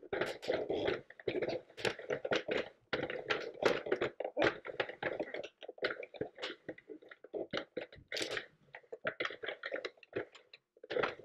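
Sentro circular knitting machine being hand-cranked on its panel setting, its plastic needles clicking in a rapid, uneven clatter as they knit cotton yarn, with a few brief breaks in the clatter.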